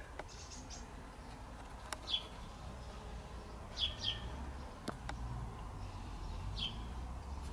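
A few short, high bird chirps spaced a second or two apart, two of them in quick succession about four seconds in, over a quiet low hum. Two faint clicks are also heard.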